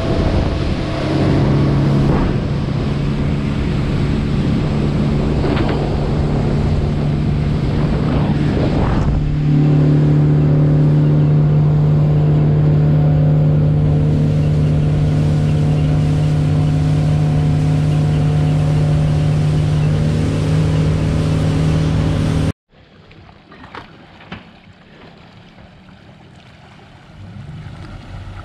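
Outboard motor on an aluminum North River boat running at speed, heard on board with wind and water rush; its steady drone steps up louder about nine seconds in. After a sudden cut, quieter wind and lake water lapping, with a motor growing louder at the very end.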